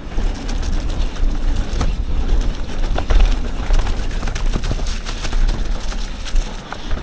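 Full-suspension 29er mountain bike ridden fast down a dirt trail: a constant low rumble of wind and rolling tyres, with many short knocks and rattles from the bike as it hits bumps.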